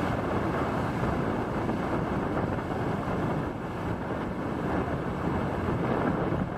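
Wind buffeting the microphone over the steady wash of small surf breaking on a sandy beach.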